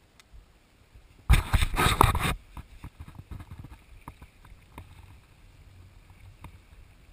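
Kayak paddle working the water close by: one loud splash lasting about a second, starting just over a second in, followed by faint drips and small light knocks.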